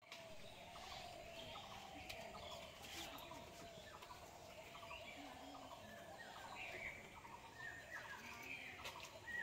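Faint outdoor background of birds chirping and calling in many short, scattered calls.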